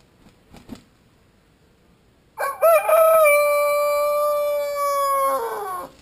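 A rooster crowing once, starting about two seconds in: a broken, wavering opening, then a long held note that falls away at the end. A few faint ticks come before it.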